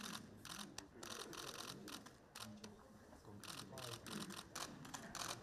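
Camera shutters clicking in quick runs of several shots each, many clicks across the few seconds, over a low murmur of voices.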